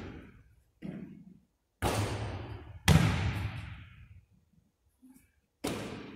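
Basketball bouncing on a hardwood gym floor: about five sharp, irregularly spaced thuds, the loudest about three seconds in, each echoing for about a second in the large hall.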